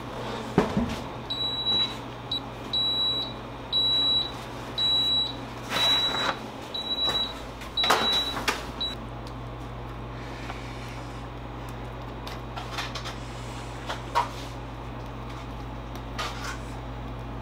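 A run of about nine short electronic beeps at one pitch, like buttons being pressed on a control panel, mixed with a few knocks, over a steady low machine hum. The beeps stop after several seconds, leaving the hum and a few soft clicks.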